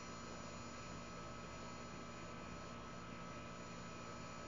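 Steady hum from a running central air conditioner's outdoor condenser unit, with constant tones over an even noise and no change in level.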